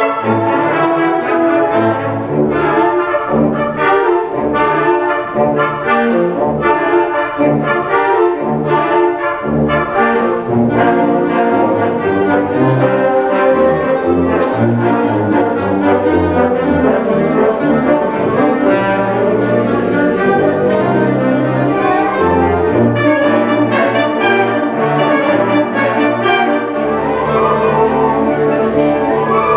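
Concert band playing, the brass (French horns, trombones and trumpets) standing out over the woodwinds, loud and continuous.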